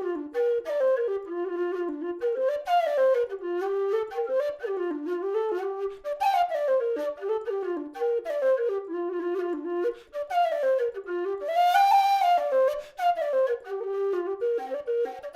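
Nightingale low whistle playing a quick melody of rising and falling runs, with a longer held high note near the end.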